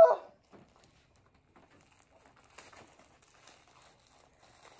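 Faint, sparse crinkling of plastic wrapping around a gymnastics club as it is handled, after a short pitched sound that cuts off right at the start.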